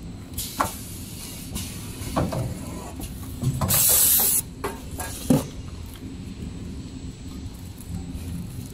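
XY-GU-27B two-head napkin tissue packing machine running with a steady low hum and a few sharp mechanical clacks, with a loud hiss lasting under a second about four seconds in.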